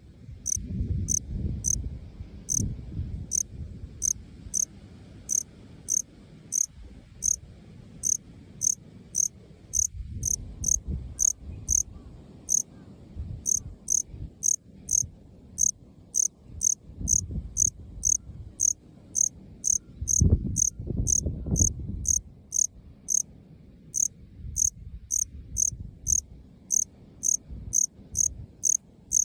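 Male Melanogryllus bilineatus cricket calling: short, high-pitched chirps repeated steadily at about two a second. Underneath runs an uneven low rumble.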